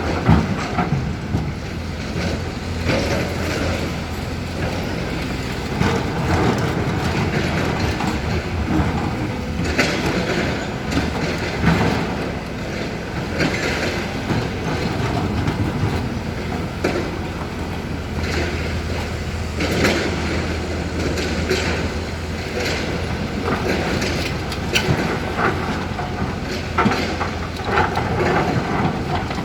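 Hyundai HX220L crawler excavator working: its diesel engine runs steadily under irregular metallic clanking and scraping every second or two.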